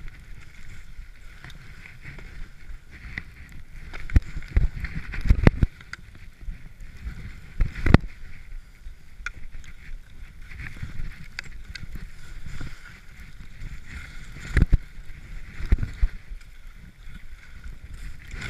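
Skis swishing and hissing through deep powder snow, with wind rumble on the microphone, broken by several sharp knocks: a cluster of them about four to six seconds in, a strong one around eight seconds, and a couple more near the end.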